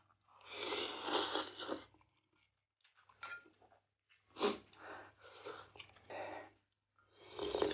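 A man slurping a mouthful of instant noodles for about a second and a half, followed by quieter chewing and mouth sounds with a spoon in the soup bowl, and a shorter slurp near the end.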